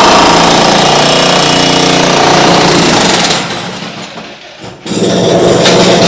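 Demolition breaker hammering rapidly. It dies away about three and a half seconds in and starts pounding again just before five seconds.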